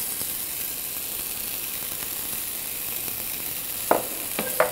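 Sliced bellflower root sizzling steadily as it stir-fries in sesame oil and soy sauce in a frying pan. A wooden spoon knocks against the pan twice near the end.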